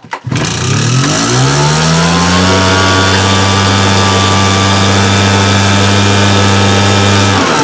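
Husqvarna 580 BTS backpack blower's two-stroke engine being throttled up: it falters for a moment at the start, then its revs climb over the next second or two and hold steady at high speed, dropping away right at the end as the throttle is let off.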